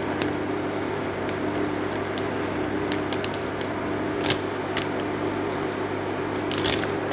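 A steady electrical hum from a kitchen appliance, with a few light ticks and rustles as desiccated coconut is pinched from a bowl and sprinkled by hand around a pie's edge onto a paper cover.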